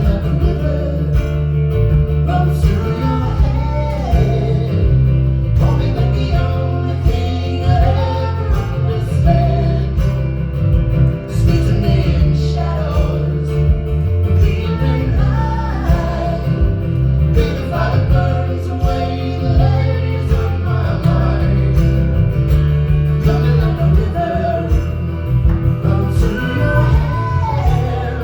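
A song performed live: guitar with a singing voice over it, playing without a break.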